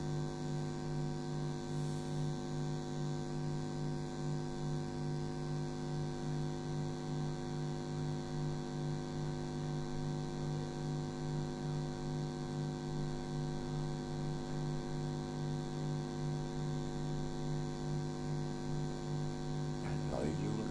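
Steady electrical mains hum with a stack of even overtones, unchanging throughout.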